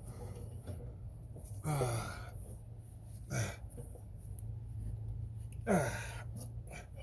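A man's effortful grunts or groans, three short ones each falling in pitch, over a steady low hum.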